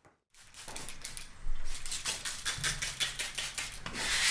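A thin maple guitar side being handled: a quick run of small clicks and wooden clatter, turning into louder rubbing near the end.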